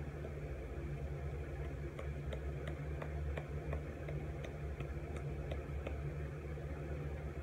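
A steady low hum, with a scattering of faint light clicks and taps from handling a plastic snuff can while a dip is taken out.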